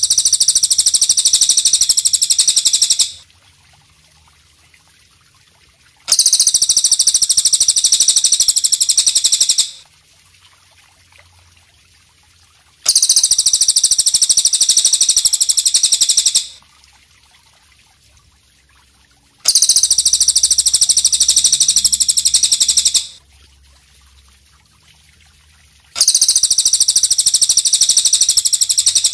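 A belalang kecek (katydid) buzzing in five long, even bursts of about three and a half seconds each, with pauses of about three seconds between them. Each burst is a rapid, high, uniform pulsing with nothing low in it.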